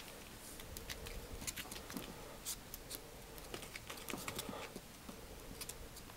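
Dachshund puppies play-fighting: irregular light clicks and scuffles of small paws and claws on a padded bed and hardwood floor.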